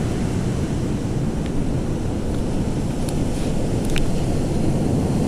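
Wind buffeting the microphone over the steady wash of surf, with a few faint ticks.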